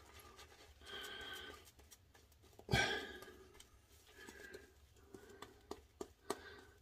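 Shaving brush being scrubbed over a lathered beard and cheek, with soft breathing. About three seconds in comes one short, loud breath-like burst, and small clicks follow near the end.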